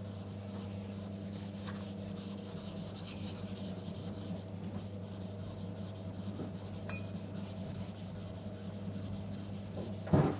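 The sole of a Stanley No. 60½ low-angle block plane is rubbed back and forth on abrasive paper over a flat lapping block, making quick, even scratchy strokes about three a second as the sole is lapped flat. A single sharp knock comes near the end.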